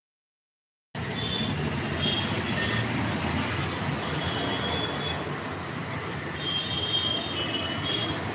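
About a second of dead silence as the live-stream audio drops out, then steady noisy background sound picked up by a phone microphone, with faint high whistling tones coming and going over it.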